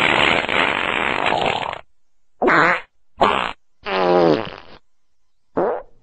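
A string of fart sounds: one long, noisy fart lasting nearly two seconds, then four short ones with gaps between them. The one about four seconds in falls in pitch.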